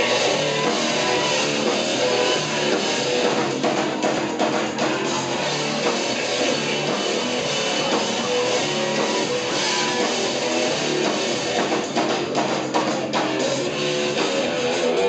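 Rock band playing live: electric guitar and drum kit, loud and steady throughout.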